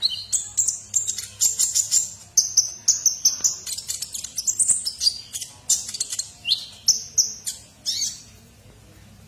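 Van Hasselt's sunbird (kolibri ninja) singing energetically: a fast, unbroken run of high, sharp chirps and twitters that stops about eight seconds in.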